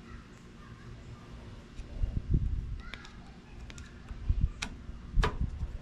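A few scattered clicks and knocks of a screwdriver working the cover screws on a Honda Helix scooter's front brake master cylinder reservoir, the sharpest two near the end.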